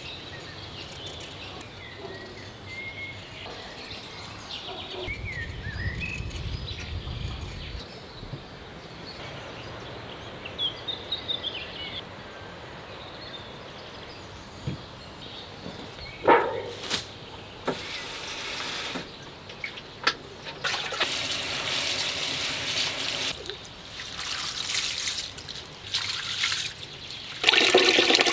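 Birds chirping now and then over a quiet outdoor background, then water splashing and pouring in the later part as rice is rinsed in a bowl and the cloudy rinse water is poured off into a sink basin, loudest near the end.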